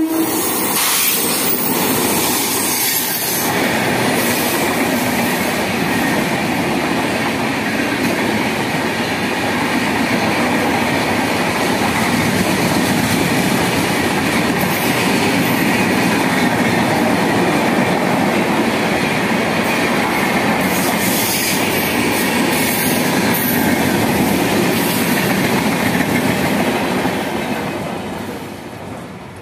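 Express train hauled by an electric locomotive passing close by at speed. Its wheels make a continuous loud rush on the rails with clickety-clack from the coaches, which fades near the end as the last coach goes by.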